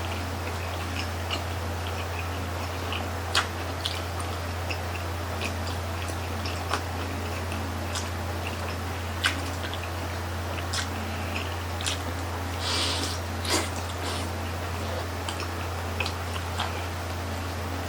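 A person chewing and biting grilled chicken intestine (isaw) barbecue, with scattered wet mouth clicks and smacks at irregular intervals and a short hiss about thirteen seconds in, over a steady low hum.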